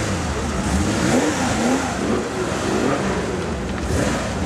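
Air-cooled flat-six engine of a classic Porsche 911 rally car running steadily close by.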